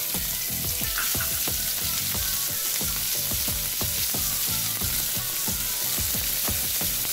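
Chopped onion frying in hot mustard oil in a pan, a steady sizzle with many quick clicks and scrapes as it is stirred.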